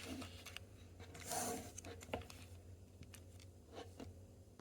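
Faint handling sounds of small fidget toys being set down and arranged: a few light clicks and a brief soft rustle.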